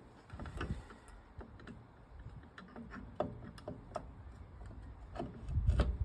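Scattered sharp clicks and light knocks of metal parts of a lawnmower transmission being handled and turned by hand, with a dull low thump near the end.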